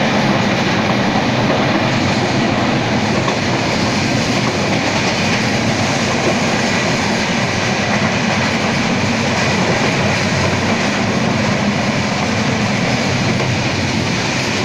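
Passenger train running at speed, heard at an open door: a steady, loud rumble and rattle of the wheels on the rails, with wind rushing past the microphone.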